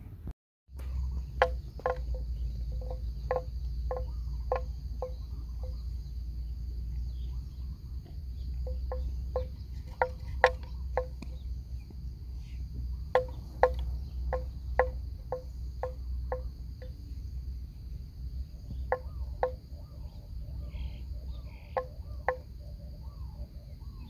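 Outdoor marsh ambience: insects shrill steadily. Bouts of short, sharp knocking calls, about two a second, come from an unseen animal, over a low steady rumble.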